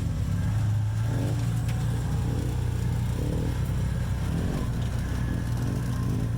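Off-road vehicle engine running steadily, a low even drone with no revving.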